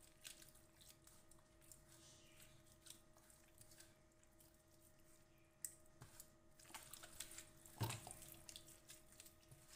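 Faint wet squelching and slapping of hands rubbing spice marinade into a raw mutton leg in a steel pan, with a sharper slap about eight seconds in, over a steady low hum.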